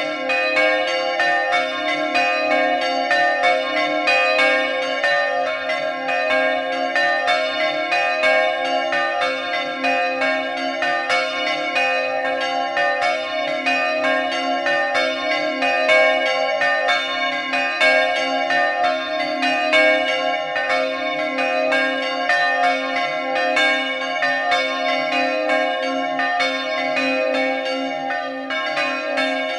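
Three bronze church bells cast by the De Poli foundry, tuned to a C-major diatonic scale, swinging high and ringing together in the Friulian slancio style, their clapper strokes overlapping in a fast, continuous peal. Heard close up from inside the belfry.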